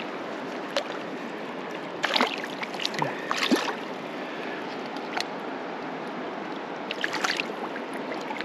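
Shallow river running steadily over a cobble bed, with short splashes about two seconds in, around three and a half seconds, and again near seven seconds as a landed whitefish is handled in the water.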